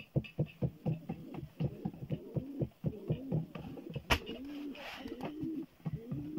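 Rapid patting and tapping of flatbread dough by hand on a large wooden board, about four to six taps a second, with one sharp slap about four seconds in as a sheet of dough goes into the tandır oven. In the second half a repeated low cooing call joins in.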